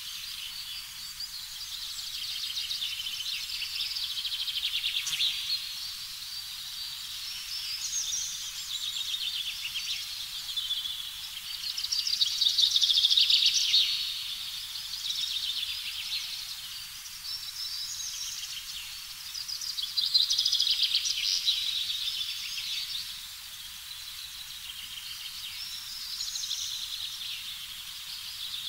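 A dense chorus of high, rapidly pulsing chirps that swells and fades every few seconds, loudest around the middle and again about two-thirds of the way through.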